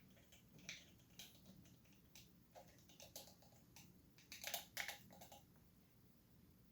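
Faint scraping and light clicks of a coffee scoop digging into ground coffee, being levelled and tipped into a French press, with a short run of clicks about four and a half seconds in.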